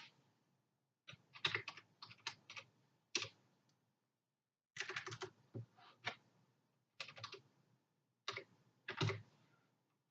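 Computer keyboard typing in four short bursts of quick keystrokes, with brief pauses between them.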